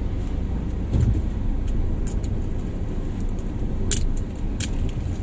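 Car interior noise: the steady low rumble of the engine and tyres heard from inside a moving car, with a few light clicks.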